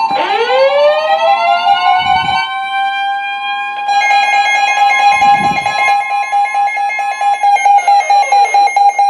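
A siren-like alarm tone that winds up in pitch at the start, holds a steady wail, and winds down again near the end, sounding over a steady electronic alert tone.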